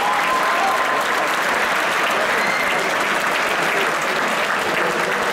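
Arena crowd applauding, a steady, dense clapping din that does not let up.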